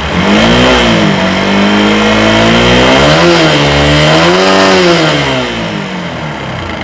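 TVS Apache RTR 4V's single-cylinder engine running and being revved in a few throttle blips, its pitch rising about half a second in, again around three and four and a half seconds, then dropping back. It carries the abnormal engine noise the owner could not cure by replacing the rocker and gasket parts, which the mechanic later traces to missing rocker arm balls, a worn camshaft and a damaged clutch assembly.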